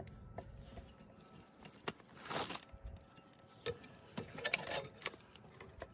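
Scattered light metal clicks and scrapes as snap ring pliers work a stubborn, expanding snap ring on the NV3500 transmission shaft, with a longer scrape a little over two seconds in.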